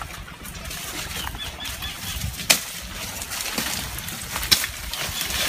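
Footsteps crunching through dry leaves and brush, with branches rustling against the walkers and a couple of sharp snaps about two and a half and four and a half seconds in.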